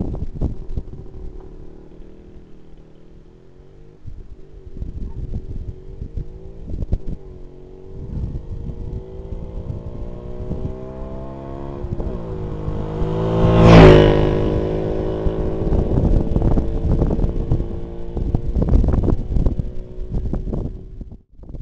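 Jawa 559 250 cc single-cylinder two-stroke motorcycle approaching with its engine note climbing, passing close by about two-thirds of the way in, where it is loudest, then its pitch dropping as it goes away. Gusts of wind buffet the microphone.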